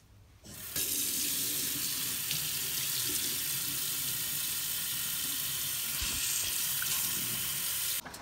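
Kitchen tap running full into a stainless steel sink, the stream splashing over a mud crab held under it to rinse it. The water comes on about a second in, runs steadily, and cuts off just before the end.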